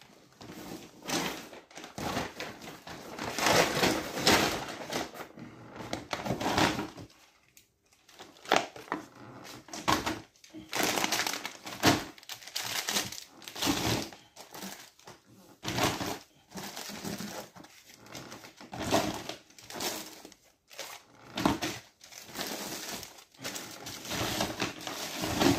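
Shopping bags and food packaging rustling and crinkling in irregular bursts as someone rummages through them, with a short lull about a third of the way in.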